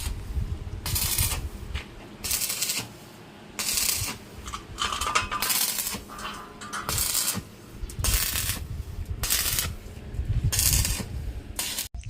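Hand sanding on a car body panel: repeated scratchy rubbing strokes, roughly one a second, unevenly spaced.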